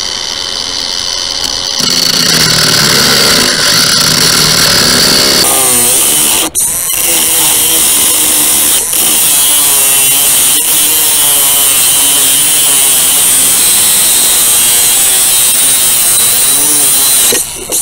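Cordless angle grinder with an abrasive cut-off disc, cutting through a rusty metal rod. The motor whine is already running at the start, turns into a loud grinding as the disc bites about two seconds in, and shifts in pitch about five seconds in. There is a short dip a little later, and the grinder stops briefly near the end.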